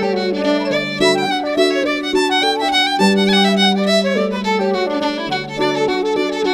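Violin, flute and harp playing a slow tune together, the violin's melody wavering with vibrato over held low notes.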